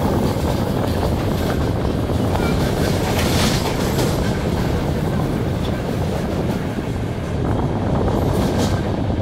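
Electric multiple unit train running on the line: a steady rumble with wheels clicking over rail joints. Brief sharper, higher noises come about three and a half and eight and a half seconds in.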